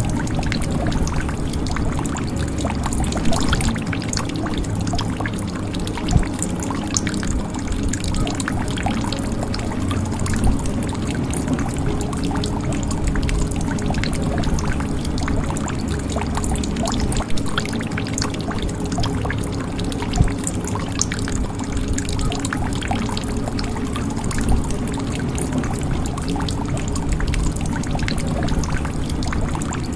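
Water running and trickling steadily into a jug, with a constant stream of small drips and splashes. A few louder drops stand out every few seconds.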